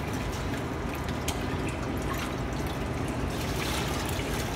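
Tap water running steadily in a thin stream into a stainless steel pot, along with water poured from a bowl over rice in a steel saucepan, with a few faint clicks.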